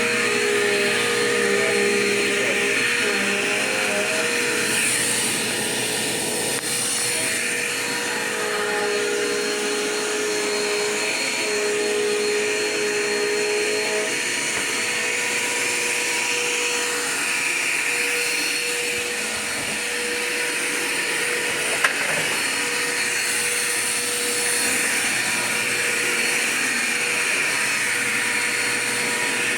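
Dirt Devil Quick Power vacuum cleaner running on bare floor: a steady motor whine whose pitch shifts slightly as it is worked, with swells of suction hiss. A single sharp click about two-thirds of the way through.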